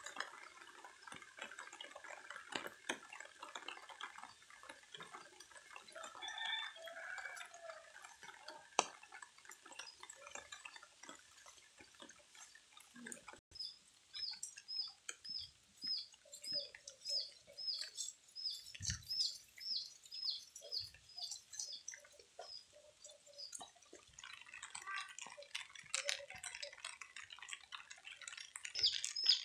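Faint outdoor ambience with scattered light ticks. About halfway the sound changes abruptly, and a bird repeats a short high chirp roughly twice a second for about ten seconds. More bird calls come near the end.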